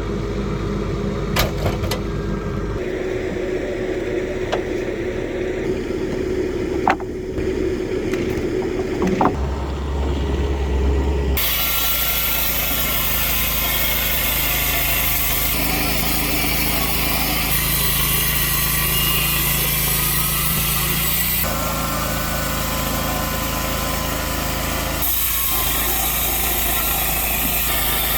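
Heavy machinery engines running steadily, with a few sharp knocks in the first part. About eleven seconds in the sound changes suddenly to a louder, hissier engine noise that shifts abruptly every few seconds.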